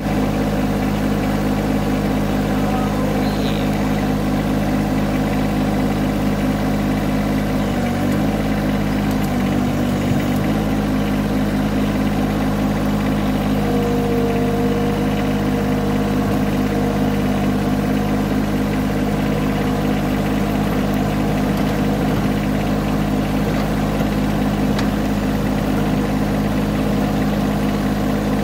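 John Deere tractor engine running at a steady speed, heard close up from on the machine, with its note dipping briefly twice about eight and ten seconds in.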